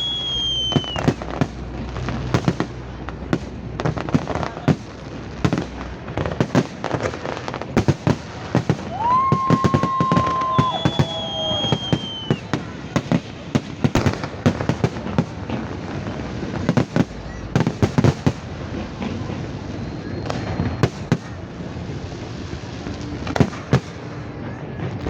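Fireworks display: rapid, irregular bangs and crackles throughout, with a short falling whistle at the start, and a held whistle then another falling one near the middle.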